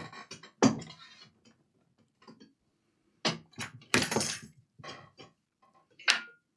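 Knocks and clatter of laptop parts being handled and set down on a workbench: a few separate knocks, a longer rattle about four seconds in, and a sharp metallic clink near the end.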